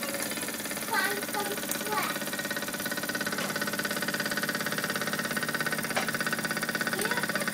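Jensen #60 toy steam engine running steadily, a fast, even rhythm of exhaust beats as it drives a line shaft and small model workshop machines through spring-wire belts.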